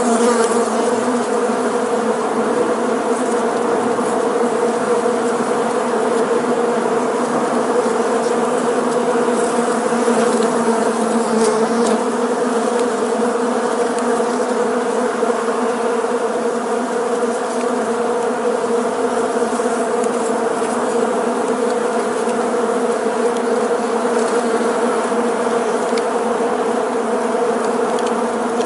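Many bees flying together, a steady, dense buzzing hum.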